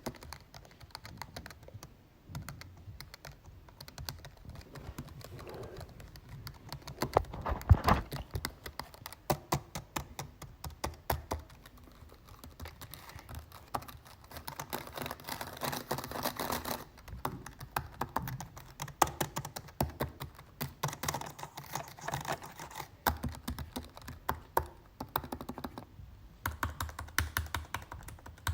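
Typing on a computer keyboard: irregular runs of key clicks, with faster bursts of keystrokes and a few heavier strokes.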